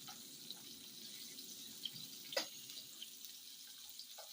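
Mushrooms frying in hot fat in a pan, a faint steady sizzle with scattered small crackles and one sharper pop about two and a half seconds in.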